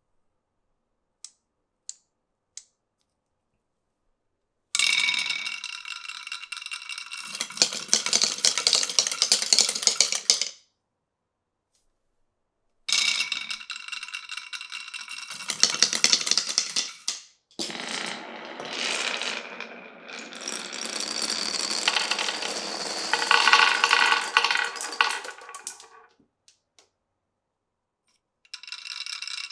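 Glass marbles and steel balls rolling and rattling along a marble run's wooden rails and clear pipes, with a ringing tone over the rolling. Three faint clicks come first, then the rattling comes in runs of several seconds with short silent gaps between them, starting again near the end.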